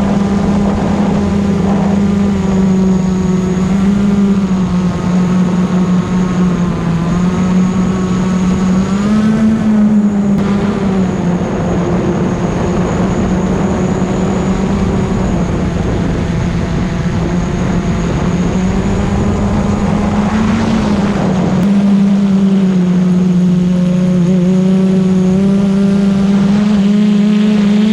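FPV quadcopter drone's motors and propellers whining in flight, a loud steady buzz whose pitch wavers and rises briefly with the throttle, about a third and three quarters of the way through.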